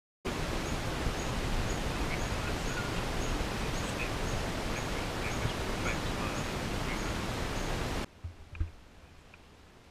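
Steady outdoor background noise with birds calling, among them a short high call repeated about twice a second. About eight seconds in it cuts to a much quieter background with a couple of soft knocks.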